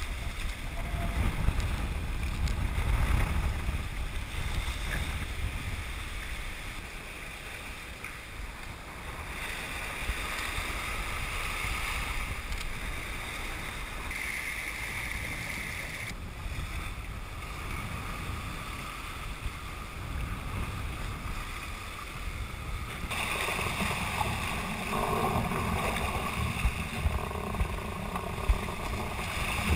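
Seawater rushing and splashing along the hull of a sailing yacht under way in a building breeze, with wind buffeting the microphone as a low rumble, strongest in the first few seconds and again near the end. The sound changes abruptly several times.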